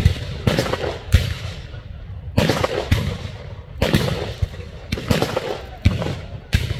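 Black-powder guns firing blanks in scattered, irregular shots, about ten reports in under seven seconds. Each sharp crack trails off in a short echo.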